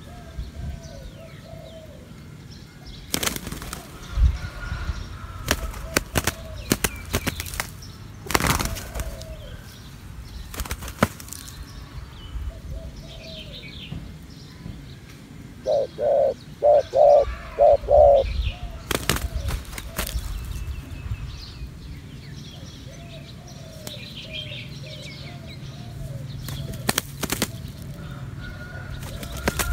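Spotted doves on the ground: a decoy dove and a wild dove in a cooing contest. Soft, repeated bowing coos run through much of it, with short bursts of wing flapping, and about halfway through comes a loud run of five quick coos.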